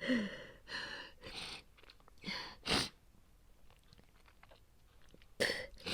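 A woman coughing in fits: about five short, harsh coughs in the first three seconds, then a pause and two more near the end. The coughing is acted as that of someone sick with a feverish cold.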